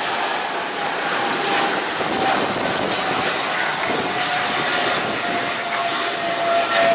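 Jet airliner passing close by: a steady rush of engine noise, with a whine that slowly falls in pitch.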